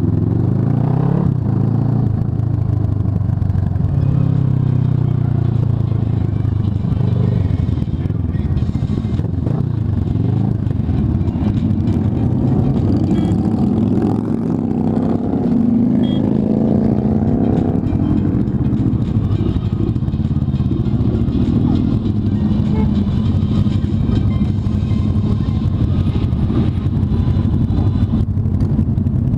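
Kawasaki ER-6n motorcycle's parallel-twin engine running while the bike is ridden, its pitch rising and falling as it accelerates and eases off, with a strong rise in revs about halfway through.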